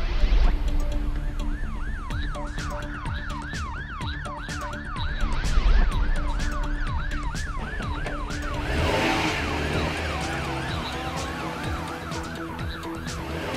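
Emergency vehicle siren sound effect: a fast, repeating rising-and-falling yelp, about three cycles a second, over background music. A burst of rushing noise comes about nine seconds in, after which the siren carries on more faintly.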